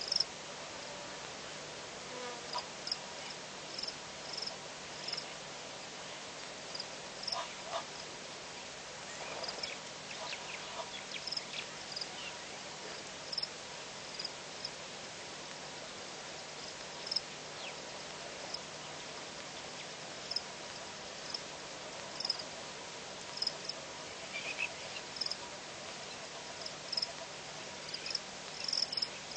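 Bush ambience with a steady hiss, over which short high chirps repeat every second or so. A few lower calls come in now and then.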